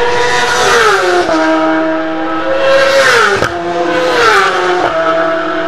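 Racing motorcycles passing at high speed, three in quick succession. Each one's engine note drops sharply in pitch as it goes by.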